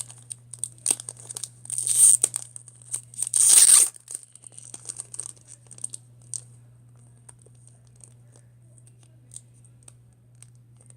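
Foil booster-pack wrapper of Pokémon trading cards crinkling and tearing as it is pulled at by hand, with two loud rips about 2 and 3.5 seconds in, then faint crinkles; the pack is hard to open.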